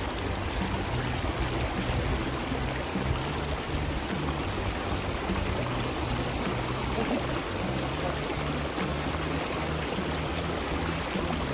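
Background music with a low bass line moving in steps, laid over a steady rushing noise of flowing river water.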